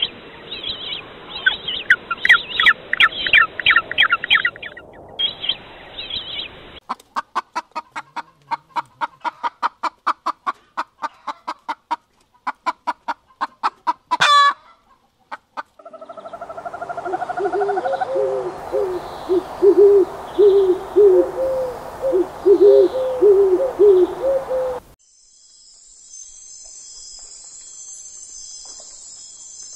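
A run of separate animal-call clips cut one after another: chirping bird calls, then a fast, even train of pulsed calls, then a stretch of repeated low fowl-like calls. About 25 seconds in it switches to a steady high insect trill like crickets.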